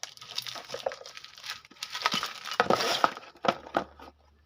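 Brake disc pads being handled: a quick run of light metallic clinks and knocks with some rustling, busiest in the first three seconds and thinning out after.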